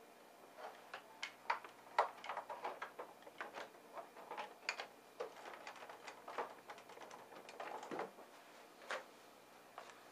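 Irregular light clicks and knocks of hands handling an inkjet printer's plastic casing while plugging its power cable back in, with one sharper knock about two seconds in.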